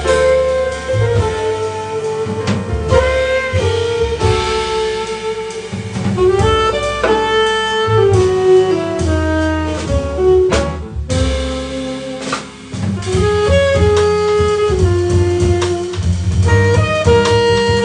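Live jazz quintet playing, with a saxophone carrying the melody in held notes that step up and down over piano, double bass, drums and guitar.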